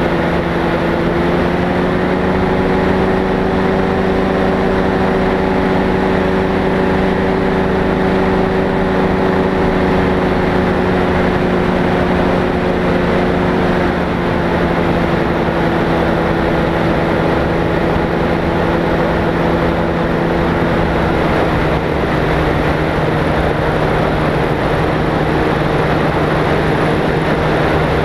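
Light aircraft's piston engine and propeller droning steadily at one constant pitch, with only a slight drift in pitch.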